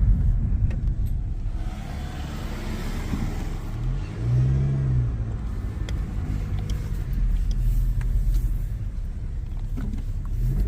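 2019 Honda Civic Sport hatchback with the 1.5-litre turbo engine driving, with a steady low engine and road rumble; about four seconds in, a whirring whine swells up and falls away. The owner wonders whether the whine is the turbo or a fault.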